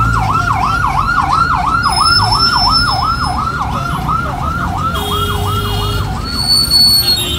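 Ambulance siren in a fast yelp, its pitch sweeping up and down about three times a second, cutting off just before the end. It is heard from inside a minibus over the low rumble of its engine.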